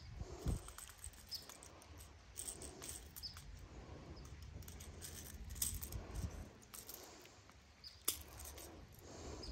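Faint, scattered clicks and rustles of metal pliers working treble hooks out of a small largemouth bass's mouth, with the fish and lure handled in the hand, over a light low rumble.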